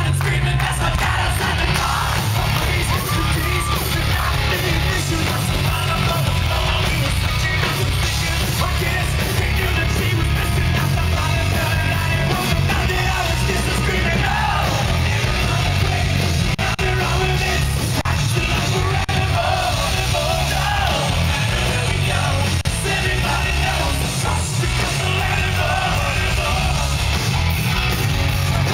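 Hard rock band playing live at full volume: electric guitar, bass and drums with a lead singer shouting the vocals. Heard from within the crowd, with a heavy, boomy low end.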